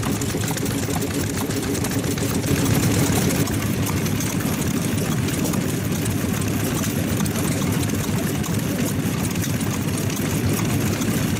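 Vintage single-cylinder stationary engines running steadily, including a Sato hot-bulb light-oil engine, with a fast, even run of firing strokes.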